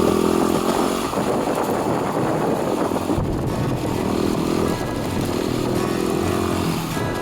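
Dual-sport motorcycle engine running under way, with wind rushing over the microphone; the engine's pitch comes and goes a few times.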